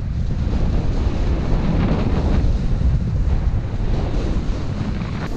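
Wind rushing over a GoPro's microphone during a snowboard run, with the board sliding and scraping over snow.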